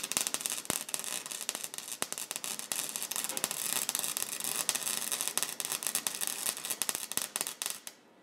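Flux-core wire-feed welder arc crackling and sizzling steadily as a bead is laid on thick steel, cutting off about eight seconds in when the trigger is released.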